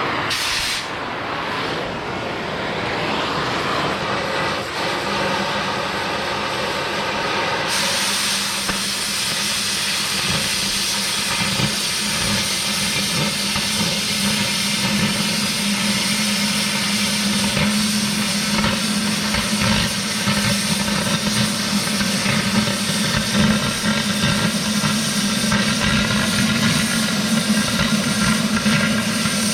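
Oxy-fuel cutting torch hissing steadily while cutting steel; the hiss turns sharper and fuller about eight seconds in.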